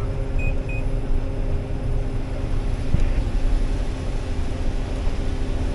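John Deere combine harvester running steadily while harvesting corn, a low rumble with a constant hum. Two brief high beeps sound about half a second in.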